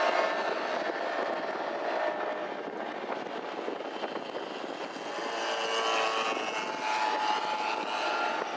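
Propeller aircraft engine droning steadily, its pitch drifting slightly up and down.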